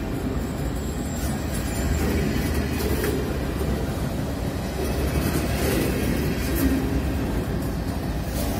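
Freight train of covered hopper grain cars rolling past close by: a steady rumble of steel wheels on the rails.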